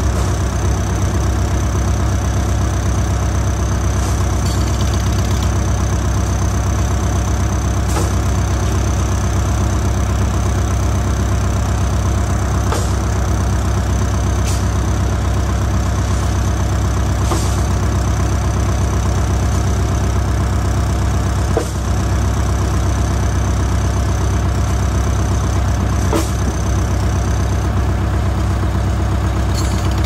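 JCB backhoe loader's diesel engine running at a steady speed, with no revving. A few sharp clicks come several seconds apart, and a faint high whine stops a little before the end.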